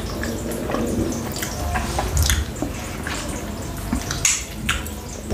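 Close-miked wet eating sounds of a khinkali, a Georgian meat dumpling, being bitten into and its juice slurped, with many short lip-smacking clicks.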